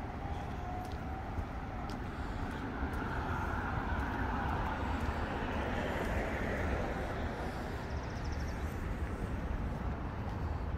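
Street traffic: steady tyre and engine noise from passing cars, with one vehicle swelling up, loudest about six seconds in, and fading as it passes.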